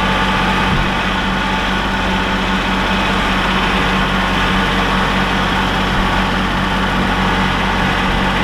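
Heavy engine of the machine moving crates of firewood, running steadily at an even speed with a constant low drone.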